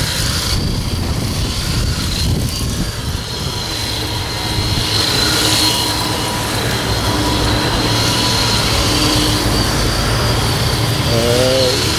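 Radio-controlled drift car running on car-park asphalt: a steady high electric whine over a low uneven rumble.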